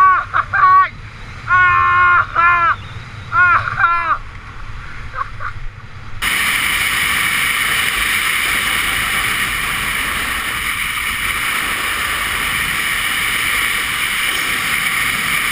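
Fast speed-riding descent on skis: a loud, steady rushing hiss of air and skis on snow, which starts abruptly about six seconds in. Before it comes a string of short, high, rising-and-falling calls.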